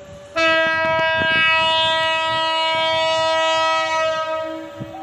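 Locomotive air horn sounding one long multi-tone chord, starting sharply just under half a second in and held loud for about three and a half seconds before easing off.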